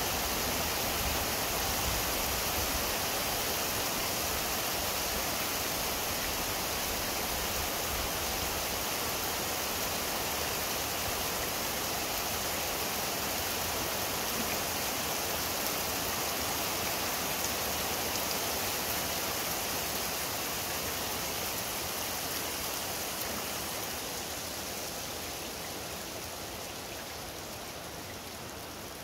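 Heavy rain pouring down steadily, with a low rumble underneath for the first several seconds; the downpour grows quieter over the last few seconds.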